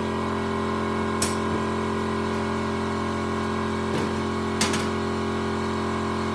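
Steady electric hum from a thermo-vacuum forming machine while its heater warms the ABS plastic sheet. A few short, sharp clicks come through it, about a second in and twice more around the middle.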